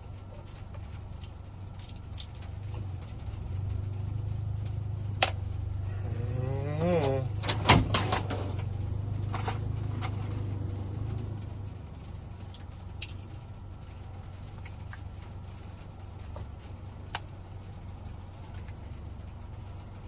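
Small sharp plastic clicks and snaps as a car key fob's case is popped open and its coin cell battery changed, with the loudest cluster about eight seconds in. Under them runs a low hum that swells for several seconds in the middle.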